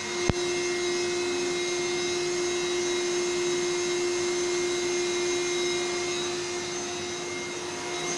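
Vacuum cleaner running steadily with a constant motor whine, and a single sharp click just after the start.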